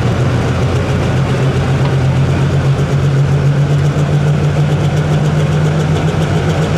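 Pro stock diesel pulling truck's engine running steadily at the start line, its pitch edging up a little about halfway through.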